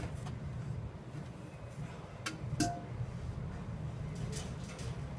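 Large metal catering tins knocking against each other and the wire roll cage as they are lifted out: two sharp metallic clinks close together about two and a half seconds in, the second ringing briefly, over a steady low hum.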